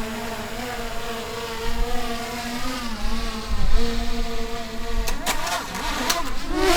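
A steady motor hum holding one pitch, dipping briefly a few times, then breaking into clicks and wavering pitch about five seconds in.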